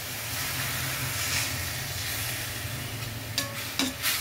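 Water poured into a hot steel pan of frying grated beetroot, sizzling and hissing. Near the end a metal spoon stirs the mix and clinks against the pan a few times.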